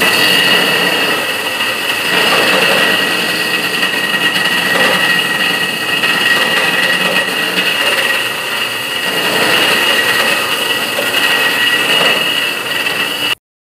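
Walk-behind electric concrete floor grinder running steadily, its grinding head grinding down humps in a concrete slab: a loud rough grinding noise with a steady high whine over it, which cuts off abruptly near the end.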